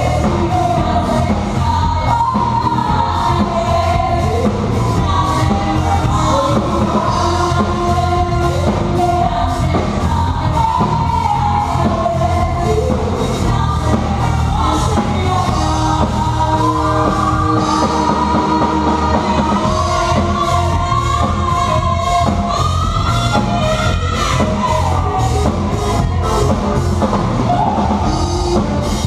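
Rock song: a singer over a drum kit and bass, with a steady beat and a continuous sung melody.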